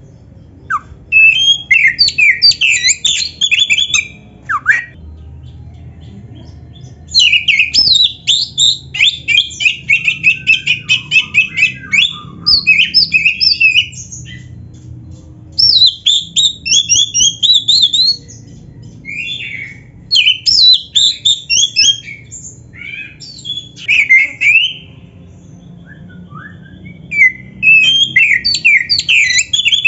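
Oriental magpie-robin (kacer) in full song: loud phrases of rapid, varied high whistled notes, each run lasting a few seconds, with short pauses between them.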